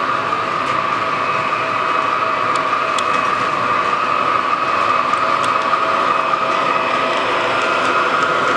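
O gauge model diesel locomotive in Norfolk Southern livery running along the track, a steady electric hum and whine from its drive with the rumble of its wheels on the rails and a few faint clicks.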